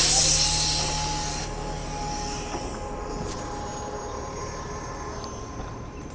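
Loud burst of compressed-air hiss as a city bus's pneumatic rear doors open, cutting off suddenly after about a second and a half. Quieter street sound follows, with a few faint footsteps on paving stones.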